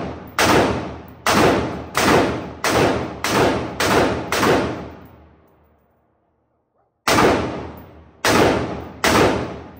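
Gunshots fired in quick succession: seven shots about two-thirds of a second apart, a pause of about two seconds, then three more, each ringing out with an echo that dies away.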